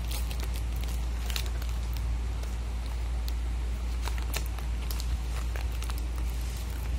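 Scattered crinkles and clicks of paper and sticky tape being handled, over a steady low hum.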